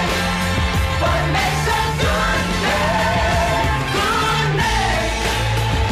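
Background music: a song with a sung vocal melody over a bass line.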